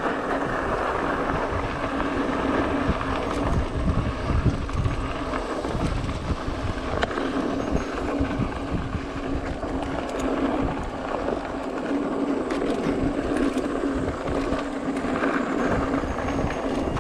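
Mountain bike rolling downhill over a dirt trail: tyre noise and scattered clicks and rattles from the bike, with a steady hum, while wind buffets the handlebar-mounted camera's microphone in gusts.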